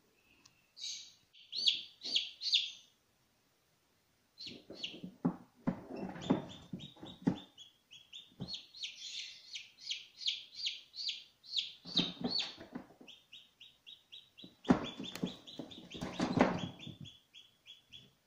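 Newly hatched Ayam Cemani chicks peeping: runs of short, high peeps, several a second, with stretches of low rustling and bumping mixed in.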